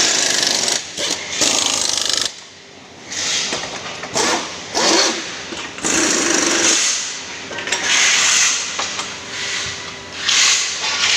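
A power tool running in repeated bursts of about a second each, with a high hiss, on an aluminium scaffolding frame being assembled.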